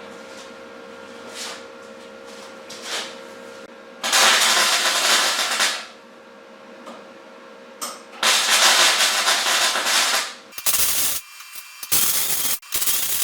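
Arc welder tack-welding steel: two crackling welds of about two seconds each, then three short tacks in quick succession near the end, over a steady electrical hum.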